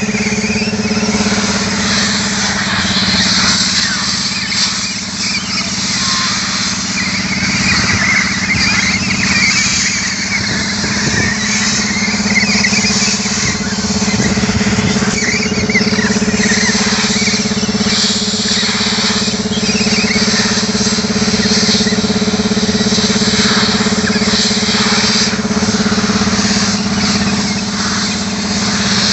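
Compressed air hissing through the nozzle of an air hose as it blows dust out of a large cylindrical air filter element. The hiss rises and falls as the nozzle moves over the filter, over a steady engine drone.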